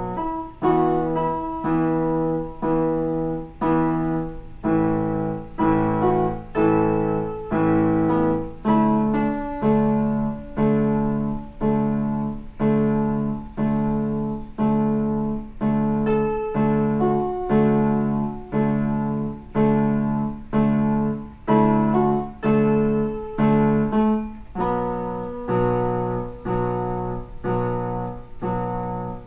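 Portable electronic keyboard played in block chords: full chords struck together at a steady pace, a little faster than one a second, each one fading before the next.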